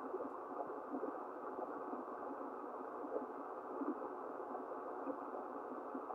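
Steady band static from an Icom IC-730 HF transceiver's lid-mounted speaker, squeezed into the receiver's narrow voice passband, as the tuning knob is turned slightly on the 20-metre band between transmissions.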